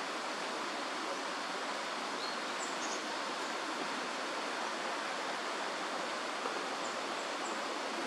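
Steady rushing of flowing water, with a few faint, short, high bird chirps about two to three seconds in and again near the end.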